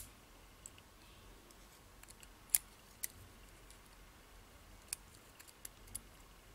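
Small metal parts of a BEST interchangeable lock core being handled in the fingers: a scattered handful of short, sharp clicks at irregular intervals, the loudest about two and a half seconds in.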